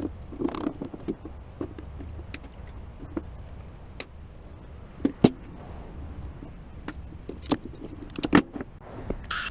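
Scattered clicks and knocks of hand tools and parts being handled during wiring work, with the sharpest knocks about five seconds in and again just past eight seconds.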